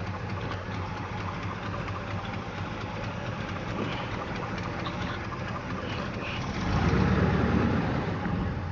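1970 Chevrolet K20 pickup engine idling through glass-pack mufflers, on a stock camshaft with a flat lobe, which the owner says makes it run rough. Near the end it gets louder for about a second.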